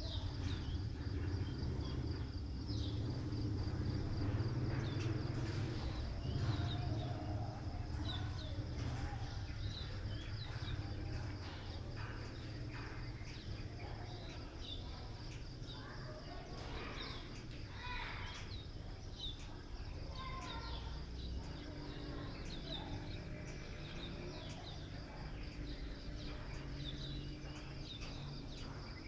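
Outdoor ambience: a steady, high pulsing insect trill under scattered bird chirps, over a low background rumble.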